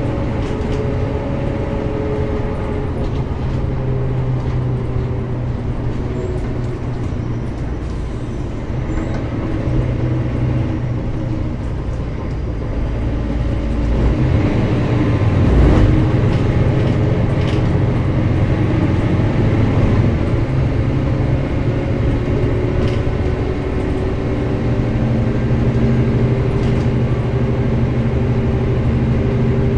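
Mercedes-Benz O405GN² articulated bus under way, its engine note rising and falling in steps as it runs through the gears. It gets louder about halfway through.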